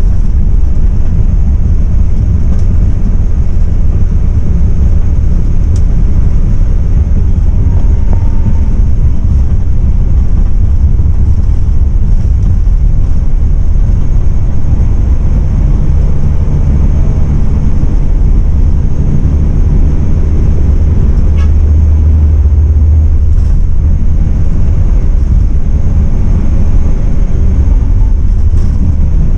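Passenger-cabin noise of a MAN 18.350 coach running at full speed on a highway: the diesel engine's steady low drone, with tyre and wind noise.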